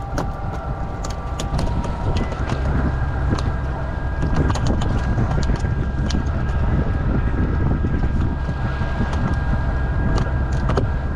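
Small fishing boat's motor running steadily under way, with wind buffeting the microphone and scattered clicks and knocks throughout.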